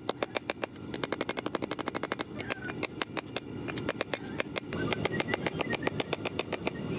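Rapid, evenly spaced hammer blows on steel, about six a second with a short pause midway, over a steady low rumble: forging 5160 high-carbon steel into a knife blank.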